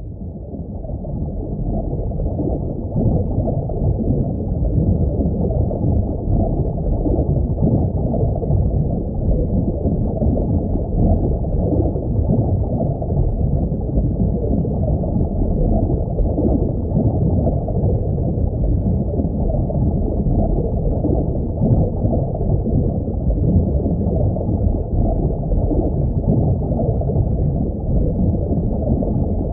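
Steady, muffled rushing of aquarium water, all low rumble with no high end, fading in over the first couple of seconds and then holding even.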